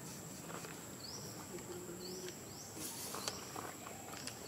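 Outdoor ambience of insects: a steady high-pitched whine, with a few short high chirps that each rise and then hold, and scattered faint clicks.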